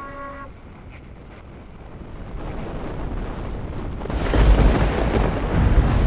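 A bell-like chime tone dies away in the first half second. Then a deep roar and rumble of a big breaking ocean wave builds up, loudest about four and a half seconds in.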